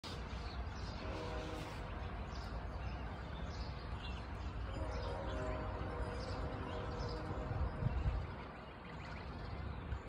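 Distant train rumbling steadily, its horn sounding twice, about a second in and again around five seconds in. Small birds chirp briefly over it, and there are low thumps near eight seconds in.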